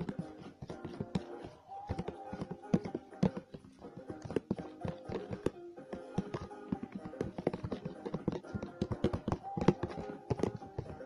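A utensil stirring raw eggs and oil in a plastic tub, clicking and tapping against the sides in quick, uneven strokes, over background music.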